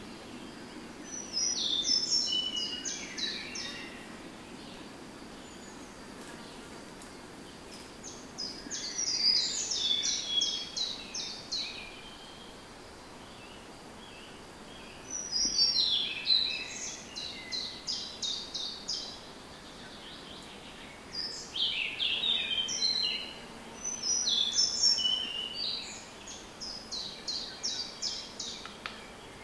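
A songbird singing the same short song about five times, with pauses of a few seconds between. Each song is a quick run of notes falling in pitch. A faint steady low hum runs underneath.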